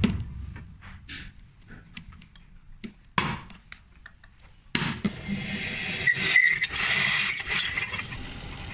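A few light taps and a sharp knock on steel about three seconds in, then from about five seconds a drill press running and drilling into a steel bar with a steady cutting noise.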